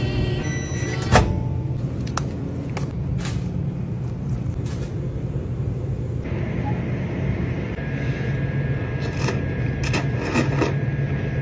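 A steady low hum throughout, with a sharp click about a second in. Near the end come a few short slurping noises as noodles are sucked up.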